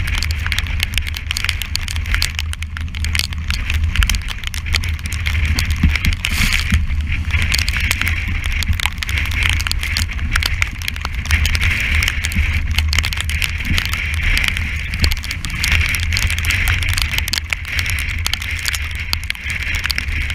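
Strong wind buffeting the microphone with a deep rumble, over the rush of sea water streaming past the hull of a sailing yacht heeled in rough water. A dense, irregular crackle of small clicks and knocks runs throughout.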